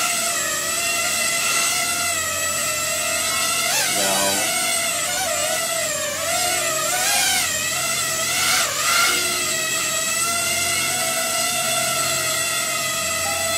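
Tyro79 FPV quadcopter's brushless motors and propellers whining while it flies. The pitch wavers up and down for several seconds in the middle as the throttle is worked, then holds steady again.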